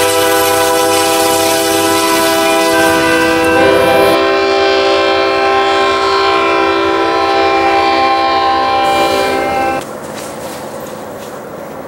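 Diesel locomotive multi-chime air horns sounding long, loud chords, the chord changing a few seconds in. The horn cuts off near the end, leaving a quieter steady train rumble.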